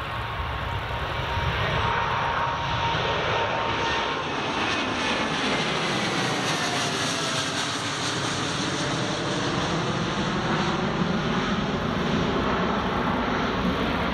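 Boeing 787-10 Dreamliner's jet engines at takeoff thrust as the airliner departs, a loud, steady jet noise. A whining tone and several fainter tones slide down in pitch as it goes by.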